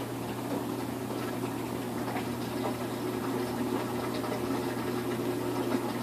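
Samsung front-loading washing machine spinning a load of duvets: a steady motor and drum hum with light, scattered knocks.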